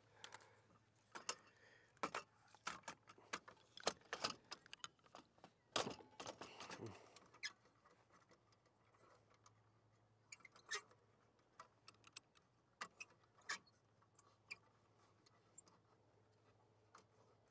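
Irregular metal clicks, clinks and knocks as a kayak trolling motor is handled and fitted into its mounting bracket, some strikes ringing briefly.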